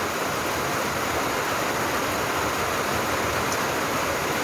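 Heavy rain pouring down, a steady loud hiss that is loud enough to drown out talking.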